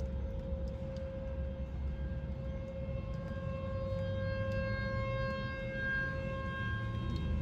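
Outdoor civil defense warning siren sounding for a tornado warning. Having wound up just before, it holds one steady pitch over a low rumble.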